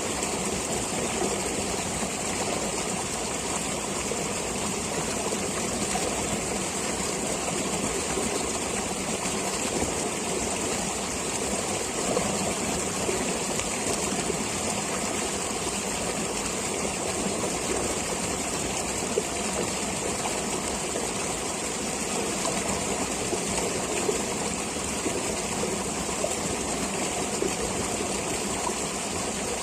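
Stream water flowing steadily, with an even unbroken rush.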